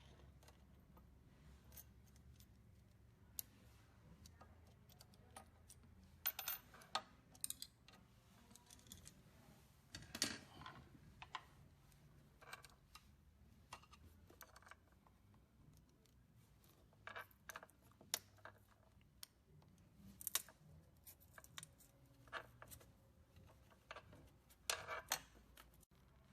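Faint, scattered clicks and short rattles of small parts and wiring being handled and fitted on a rowing machine, with a few louder clusters spread across the stretch.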